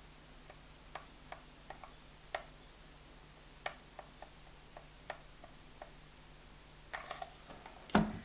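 Faint, scattered plastic clicks and ticks from a hot glue gun and hard plastic perler beads as glue is run around the edge of a bead plate, with a louder knock near the end as the glue gun is put down.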